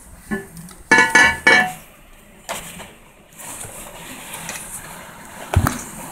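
Aluminium machine parts clinking and ringing as they are handled: a few metallic clinks in the first second and a half, then a lower knock near the end.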